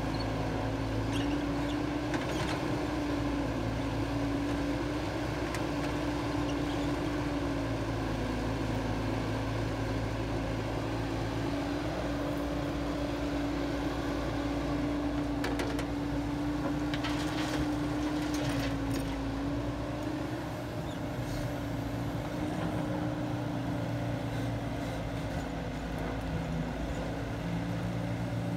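Caterpillar tracked excavator's diesel engine running steadily under working load while it digs and loads soil, its drone wavering slightly in pitch, with a low hum that comes and goes. A few sharp knocks sound around the middle.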